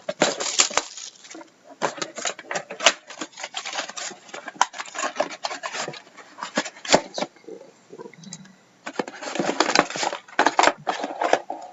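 A shrink-wrapped trading card box being handled: irregular crinkling and crackling of the plastic wrap with sharp taps on the cardboard, in clusters, easing off for a moment past the middle.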